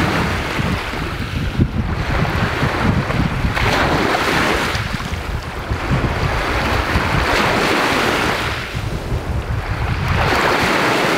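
Waves breaking and washing on a shore, swelling and falling away every two to three seconds, with a steady low rumble of wind on the microphone.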